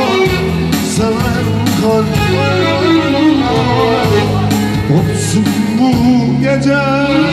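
Live male vocals sung into a microphone through a PA system, with electronic keyboard accompaniment. The melody wavers and bends in pitch over steady sustained bass and chords.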